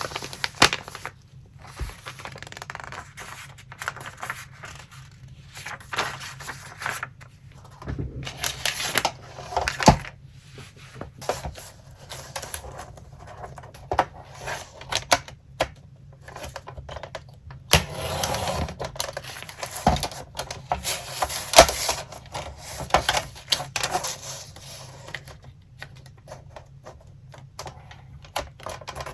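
Paper collage materials being handled on a desk: sheets rustling, with quick taps and clicks throughout and a few sharper clicks.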